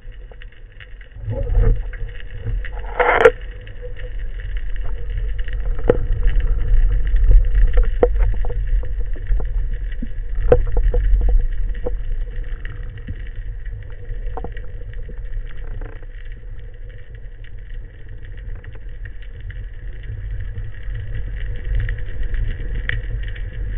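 Underwater ambience on a speargun-mounted camera: a steady low water rumble that swells and eases, with scattered clicks and knocks and a short crackling burst about three seconds in.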